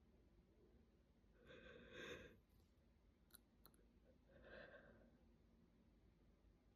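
A woman's faint breathing while working up to an induced sneeze: two soft, sighing breaths about three seconds apart, the first the louder, with two small clicks between them.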